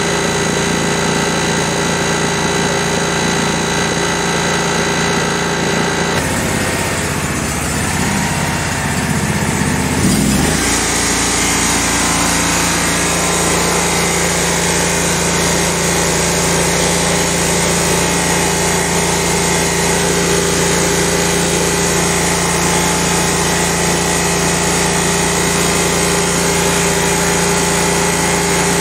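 Scag zero-turn mower's Vanguard 16 HP engine running steadily. Its note dips for a few seconds and rises again about ten seconds in. Meanwhile the new voltage regulator charges the battery at about 13.5 volts, so the charging system is working.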